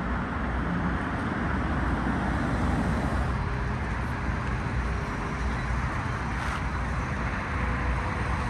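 Steady street traffic noise: a continuous low rumble of passing and idling vehicles with no distinct events.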